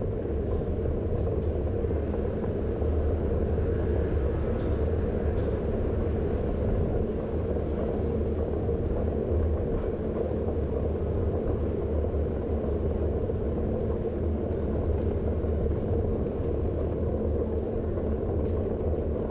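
Steady low rumble of wind buffeting the microphone of a moving camera, with no distinct events.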